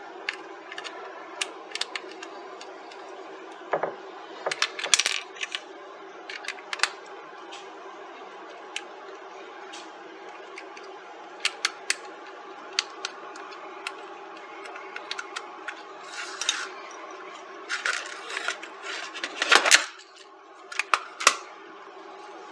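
Small screwdriver clicking and scraping on the tiny screws of a Retekess V115 radio's plastic back case as they are backed out, with screws set down on a wooden board. Scattered sharp clicks and ticks, with a cluster near the end, over a steady low hum.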